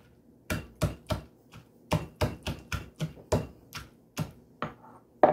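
Pestle pounding in a mortar, a run of sharp knocks at about three strikes a second that starts about half a second in, crushing ingredients for som tum.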